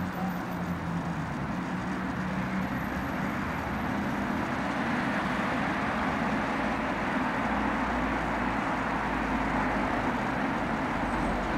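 Steady, even background noise with no distinct events, of the kind heard from ambient traffic or room noise.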